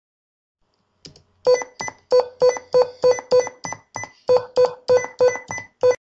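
Windows Sticky Keys sound cues: a rapid string of short electronic beeps, about three a second, each set off as a modifier key is pressed.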